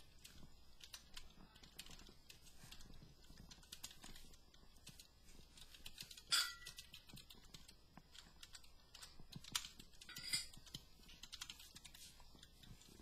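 Typing on a computer keyboard: an irregular run of key clicks, with two louder clacks about six and ten seconds in.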